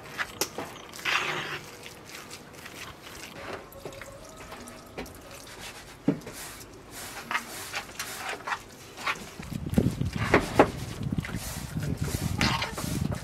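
Wet fish-and-herb stuffing being stirred with a spoon and worked by hand in a pan: soft squelching and small scraping clicks, busier from about two-thirds of the way in.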